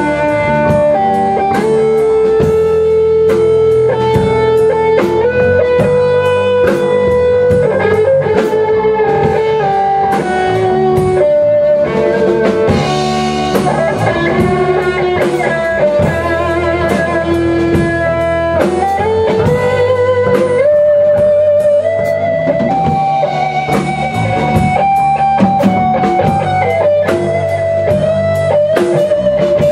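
Live blues-rock band playing without vocals: an electric guitar plays a lead line of sustained, bent and wavering notes over electric bass and a drum kit.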